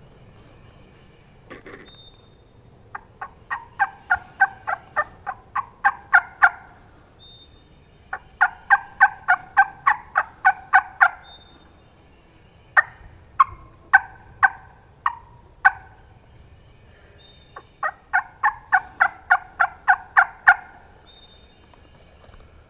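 Turkey yelping in four loud runs of about ten to thirteen sharp notes each; the third run is slower, with six notes. Faint high chirps of small birds sound between the runs.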